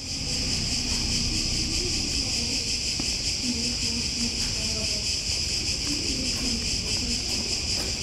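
Cicadas in full summer chorus: a steady, dense, high-pitched buzzing drone. Faint distant voices sit underneath.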